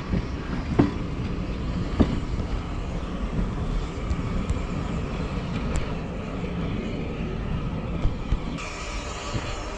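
Steady low rumble of a steam train on the rails, with a few sharp metallic clanks. Background music comes in near the end.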